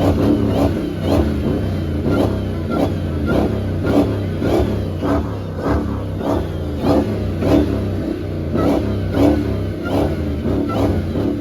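A car on the move with music playing, heard from inside: a steady beat about every 0.6 s and heavy bass over engine and road noise.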